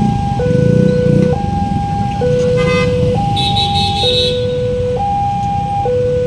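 Railway level-crossing warning siren sounding a two-tone hi-lo alarm, switching between a higher and a lower note just under once a second, over a steady low rumble. A brief higher-pitched sound cuts in about three and a half seconds in.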